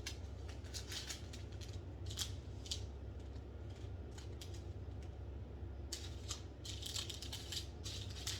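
Small plastic bags of diamond-painting drills being handled, with faint scattered crinkles and light clicks, busiest about six to seven and a half seconds in, over a low steady hum.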